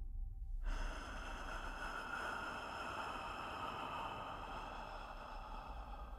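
A quiet, steady rushing noise that starts abruptly about a second in and slowly fades, over a low rumble.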